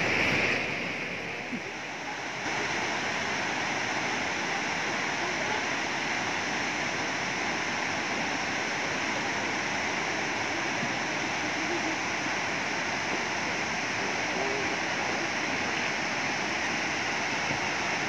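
Fukuroda Falls, a tall four-tiered waterfall, rushing steadily: a constant hiss of falling water, a little quieter for the first two seconds.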